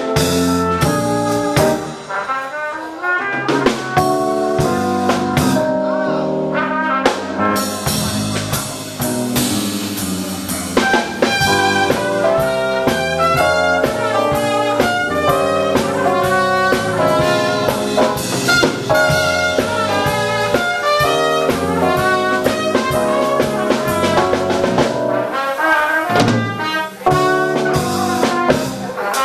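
Live small-group jazz: a trumpet plays the lead line over electric bass, drum kit with cymbals, and keyboard.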